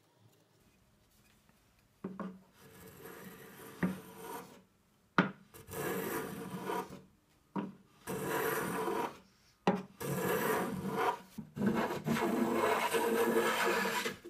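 Block plane shaving a chamfer along the edge of a solid birch top, about five rasping strokes starting about two seconds in, with a sharp click as the plane meets the wood at the start of some passes.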